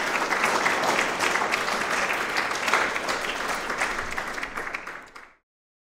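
Audience applauding: many hands clapping in a dense patter that fades out near the end and stops about five seconds in.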